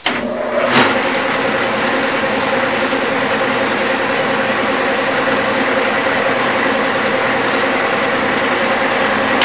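A Clausing metal lathe starts up and runs steadily at slow speed, with a three-corner file held against a 3/8 coarse screw thread turning in the three-jaw chuck to clean up the damaged thread.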